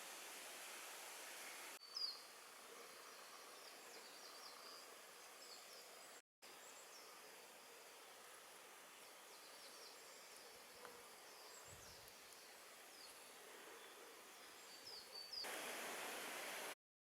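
Faint, high chirping of small birds, short notes repeated irregularly, over a steady hiss of outdoor background.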